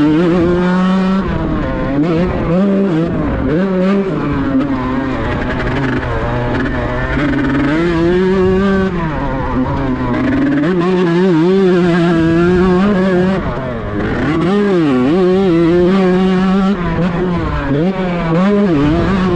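Kawasaki Ninja grasstrack bike's tuned two-stroke engine running, buzzing with a steady note that swings up and down as the throttle is blipped several times.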